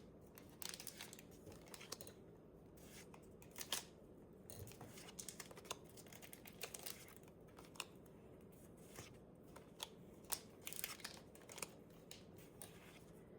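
Faint, scattered clicks and soft rustles of Pokémon trading cards being handled and slid one behind another from a freshly opened booster pack.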